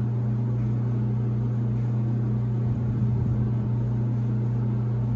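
Frigidaire FFLG3911QW0 stackable gas dryer running, its drum motor giving a steady low hum, with no click from the gas valve solenoid. The dryer is not heating, which the owner takes for an open thermal high limit switch keeping the gas valve shut.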